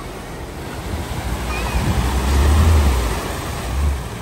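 Volkswagen Transporter van ploughing through deep floodwater at a ford: a rush of splashing bow wave over a low engine rumble, growing louder as it passes close and loudest a little past halfway.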